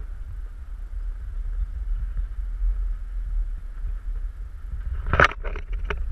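Wind buffeting the microphone of a camera on a selfie stick as a low steady rumble while it swings through the air on a rope swing, with a quick cluster of three or four sharp knocks about five seconds in.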